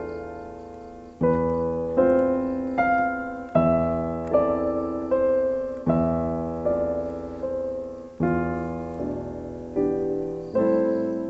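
Background piano music: slow chords struck about every one to two seconds, each left to ring and fade.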